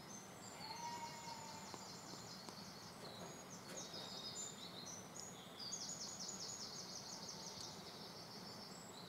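Faint outdoor ambience with small birds singing: several runs of rapid, high-pitched repeated notes.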